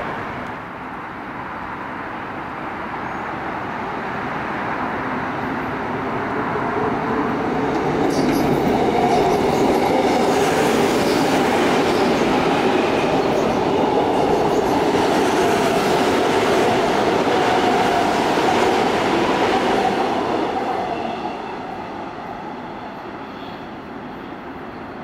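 Seoul Subway Line 2 electric train running past close by on a railway bridge, with wheels on rail and a steady mid-pitched tone under the rush. It builds over the first several seconds, is loudest for about twelve seconds in the middle, then fades away.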